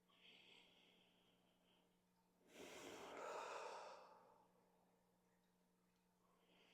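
A person breathing deeply: a soft breath in through the nose, then about two and a half seconds in a long audible open-mouth exhale, a sigh, with another soft breath in starting near the end.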